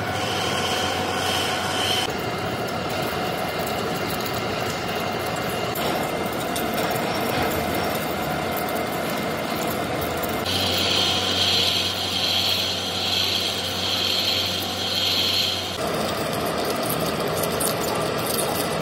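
Heavy engine lathe running steadily while its tool turns a large shaft, the cut breaking off chips. For several seconds midway, a high cutting squeal swells and fades about once a second.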